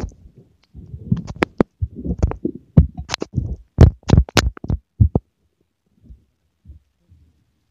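Muffled knocks, sharp clicks and low rumbling scrapes right against a covered phone microphone, irregular and loud, breaking off about five seconds in and leaving only a few faint thumps.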